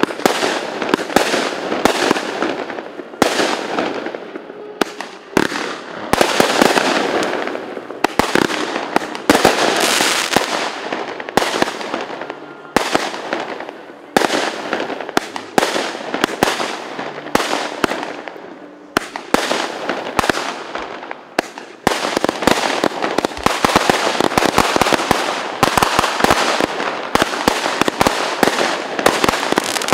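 Fireworks going off in a dense, continuous barrage: many sharp bangs overlapping with crackling, growing even denser for the last third.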